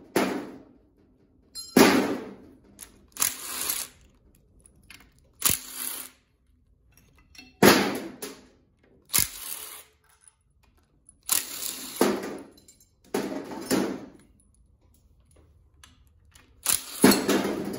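Cordless impact driver run in about ten short bursts, spinning out the bolts that hold the engine's timing chain guides.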